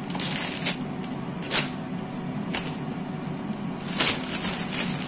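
Clear plastic bag crinkling and rustling in short, sharp bursts as it is handled, four or five times, loudest about four seconds in, over a steady low hum.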